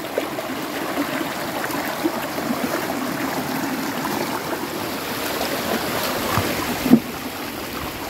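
Steady rush of running water, with a single short thump about seven seconds in.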